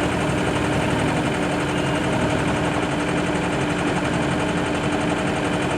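An engine running steadily, with a constant pitched hum over a fast, even low rumble.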